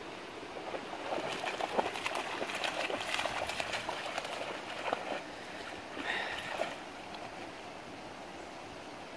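A puppy splashing as it wades through shallow water, a quick run of splashes for about four seconds, then only soft water sounds.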